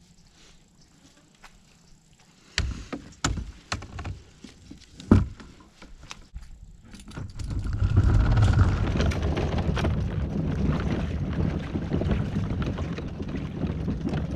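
A few sharp knocks and clunks on a kayak, then from about seven seconds in a steady scraping rumble as the kayak's plastic hull slides down the launch ramp toward the water.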